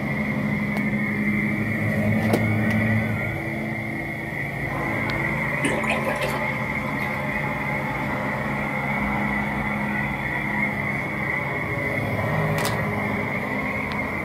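Halloween animatronic raven prop running: a steady drone with low tones that swell and fade, and a few faint clicks.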